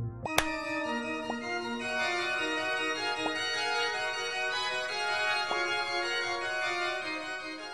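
Background music: an organ-like keyboard tune in held notes, starting with a sharp click just after it begins and fading out near the end.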